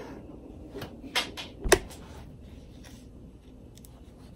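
A few short knocks and clicks of a knife and hands on a cutting board, the loudest a little under two seconds in, followed by quiet room tone.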